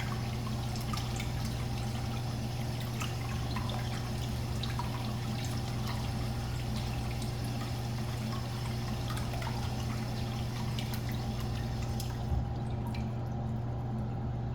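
Urinal flushing: water running and splashing into the bowl as it fills, the flow weaker than usual because of reduced water pressure. The rush eases about twelve seconds in with a light knock. The bowl fills faster than its slow, partly blocked drain takes the water away.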